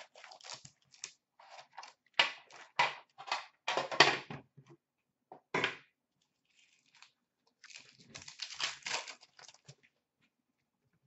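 Foil-wrapped hockey card packs and their packaging crinkling and tearing as they are handled and ripped open, in a run of short rustling bursts with a quieter gap of about a second and a half partway through.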